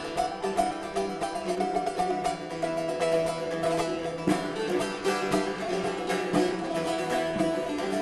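Bağlamas, Turkish long-necked lutes, strummed rapidly in a driving, even rhythm during an instrumental interlude between sung verses, with no singing.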